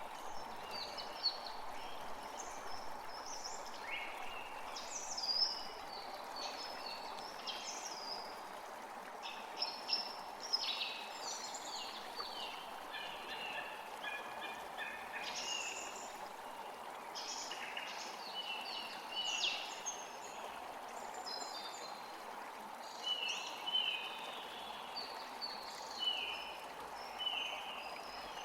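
Forest creek flowing steadily, with many birds singing and chirping over it. Near the end one bird repeats a short, falling note several times.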